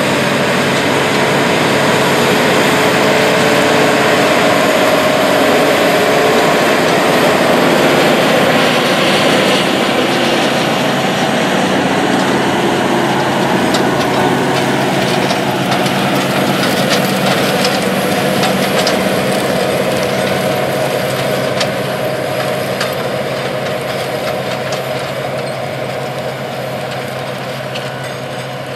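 Case IH Steiger Quadtrac 620's six-cylinder diesel engine working hard under heavy load as it drags a nine-shank inline ripper through hard, drought-dry ground, with scattered clicks and rattles midway. The sound fades over the last several seconds as the tractor moves away.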